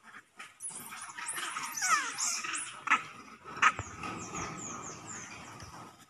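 Young macaques squealing in a run of short, high-pitched calls that fall in pitch while they play-fight, with one longer falling squeal about two seconds in. Two sharp knocks come about three and three and a half seconds in.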